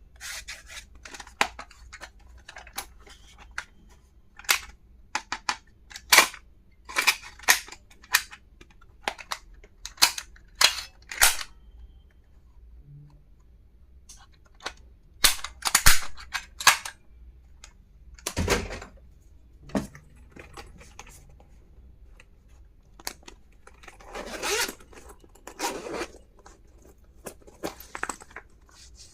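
Plastic stationery and its packaging being handled: an uneven string of sharp clicks and taps, with a few longer rustles of wrapping near the middle and towards the end.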